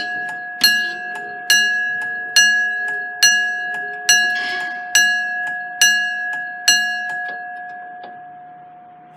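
Level crossing warning alarm sounding a ringing, bell-like strike about once a second. The strikes stop about seven seconds in and the ringing fades away.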